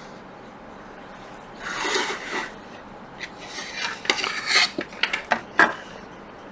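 A small tool scraping and clicking against a laptop circuit board: one brief rasp about two seconds in, then a quick run of sharp clicks and scrapes.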